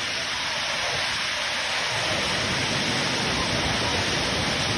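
Dunn's River Falls' cascade pouring over a rock ledge and onto a person standing in it: a steady rush of falling water that grows fuller and deeper about two seconds in.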